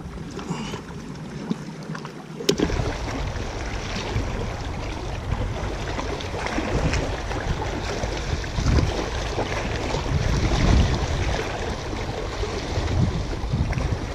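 Wind buffeting the microphone over small sea waves washing against shoreline rocks, in a steady rumbling rush. A sharp click comes about two and a half seconds in, before which it is quieter.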